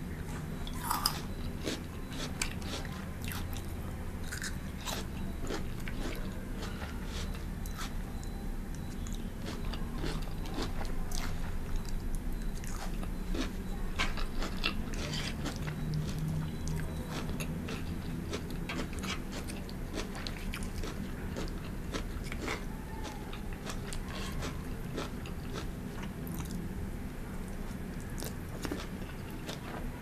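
Close-miked eating: biting and chewing a mouthful of pan-fried noodles and vegetables, with many short crunches and mouth clicks through the whole stretch.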